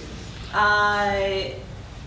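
A woman's voice holding one drawn-out, level vowel for about a second, a hesitation sound in the middle of a sentence.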